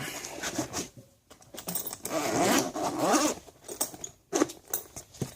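Zipper on a Veto Pro Pac tool bag being pulled open in two long rasps, the second one about two seconds in. Fabric handling follows, with a few sharp clicks near the end.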